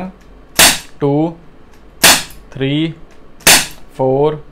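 Crosman SNR357 CO2 BB revolver firing: three sharp shots about a second and a half apart, each followed by a short spoken count.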